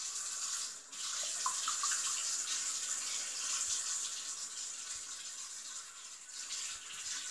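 Water running steadily from a tap, starting abruptly, with a brief dip about a second in.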